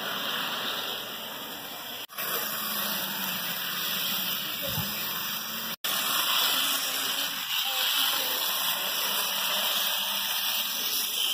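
Model diesel freight train running on a layout: a steady whirring and rolling noise from the locomotive motor and wheels on the track, with no clear rhythm. The sound cuts out briefly twice, about two and six seconds in.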